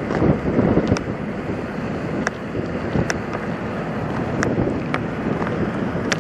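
Wind buffeting the microphone, a rough low rumble, with a few faint sharp ticks scattered through it.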